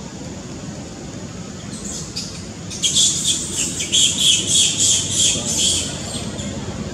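A bird calling: a rapid series of high chirps, about five a second, starting about three seconds in and lasting about three seconds.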